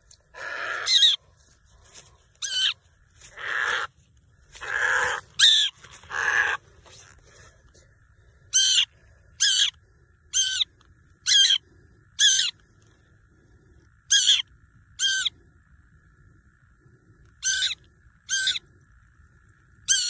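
Harsh distress squawks from a cinnamon bittern pinned down by a shikra. Longer, lower cries come in the first six seconds, then shorter, sharper calls about once a second from about eight seconds in.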